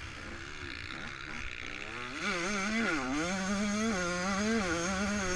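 Yamaha YZ125 two-stroke single-cylinder motocross engine under way on a dirt track. It runs softer for the first two seconds, then gets louder, the revs dipping and climbing again as the throttle is rolled off and back on, and holding high to the end.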